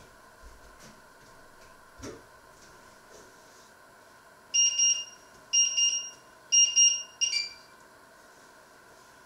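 Electronic kitchen-appliance beeper: three evenly spaced beeps of about half a second each, then a shorter beep at a different pitch. A soft knock comes about two seconds in.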